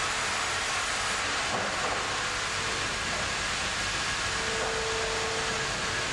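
Band saw sawmill line running: a steady, even machinery noise with a faint steady hum.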